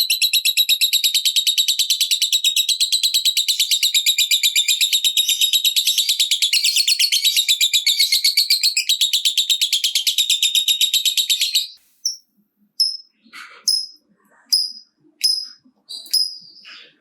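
Lovebird giving its long rapid 'typing' chatter, a high trill pulsing several times a second, used as bait to set other lovebirds off. It stops abruptly about two-thirds of the way through and gives way to a string of short, sharp single chirps, each about two-thirds of a second apart.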